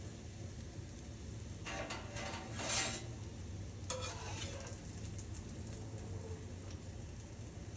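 Tuna croquettes sizzling softly in a pan of hot oil, with a metal utensil scraping and clinking against the pan twice, about two and four seconds in.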